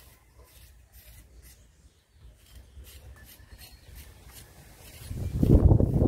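Faint, repeated scratching of a curved rib scraping slip off the inside of a leather-hard clay bowl. About five seconds in comes a much louder low rumbling thump.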